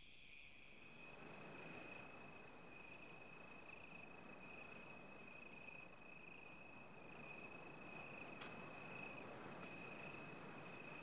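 Faint crickets chirring steadily, one thin high unbroken tone over a low hiss.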